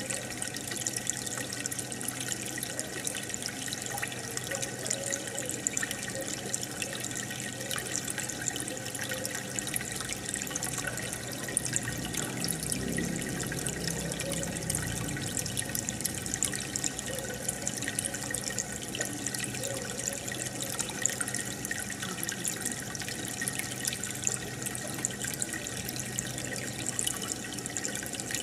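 Aquarium filter and air bubbles: water bubbling and trickling steadily, with a fine crackle of small bubbles bursting at the surface.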